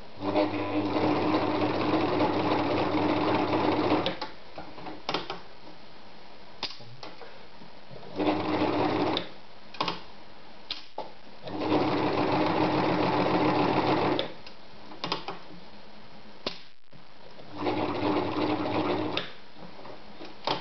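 Privileg Voll-Zickzack Superleicht 360 electric sewing machine stitching in four bursts, the first about four seconds long and the others shorter, with a few small clicks in the pauses between them. It is sewing a folded seam that steps from four layers down to two and back up to four.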